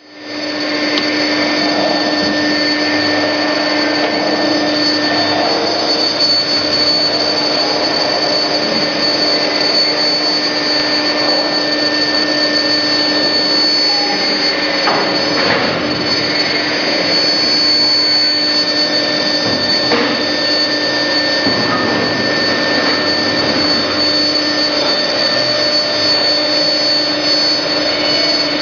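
TR203-1 CNC router running: a steady machine hiss and whine, with a hum and a higher tone that drop out for a few seconds now and then and come back.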